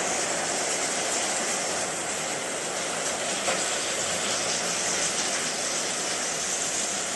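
Steady rain falling on a tiled porch and concrete yard: a dense, even hiss.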